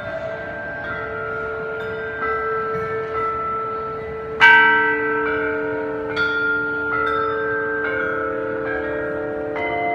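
Bells struck one at a time at several different pitches, each note ringing on and overlapping the next. The loudest strike comes about halfway through.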